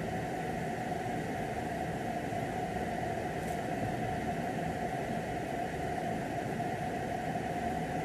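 Steady background noise: an even hiss with a faint constant hum, unchanging throughout, with no distinct events.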